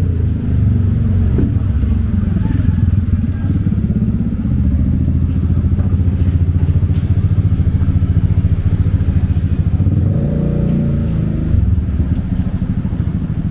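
A motor vehicle's engine running close by, a steady low pulsing throughout, with faint voices about ten seconds in.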